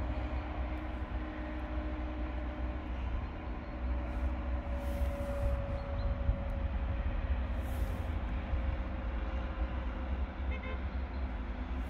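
Road-rail excavator working on the track, heard from a distance: a steady low engine rumble with a faint whine that slowly drops in pitch between about four and eight seconds in.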